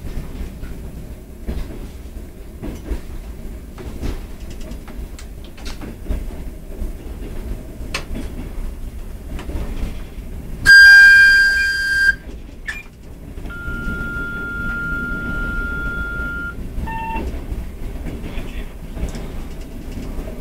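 ED4M electric multiple unit running, heard from inside the cab: a steady low rumble with scattered clicks of the wheels over rail joints. About halfway the horn sounds one loud blast for about a second and a half. A quieter steady high tone follows for about three seconds, then a short tone.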